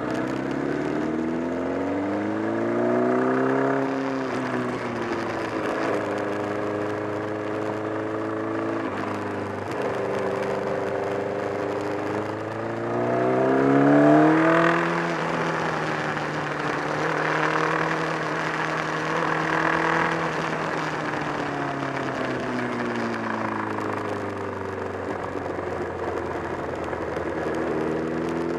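Honda CBR1000RR's inline-four engine running under load, revving up and down with breaks between rises that fit gear changes and a peak about halfway through. The rider reports a flapping noise from near the engine that had grown stronger, together with a loss of torque.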